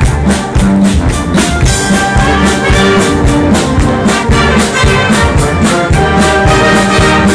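Youth brass band playing live: trumpets, trombones and woodwinds holding loud chords over a steady drum beat.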